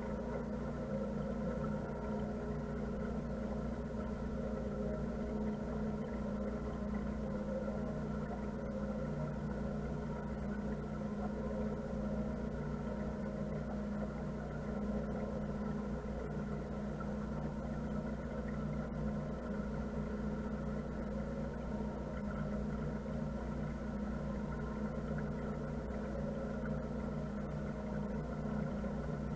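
Motor cruiser's engine running steadily while the boat cruises slowly on calm water, an even hum that holds the same pitch and level throughout.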